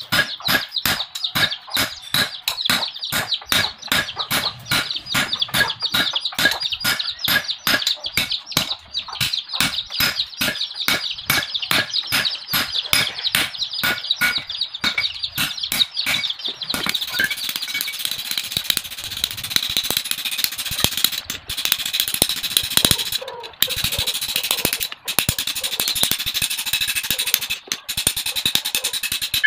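Hand hammer forging a hot bearing-steel knife blank on a makeshift steel anvil: steady ringing blows about three a second. About halfway through the blows get faster and run together into a denser, brighter clatter.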